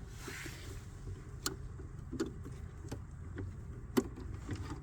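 A few light clicks and knocks of car interior parts being handled, the sharpest about a second and a half in and about four seconds in, over a low steady hum.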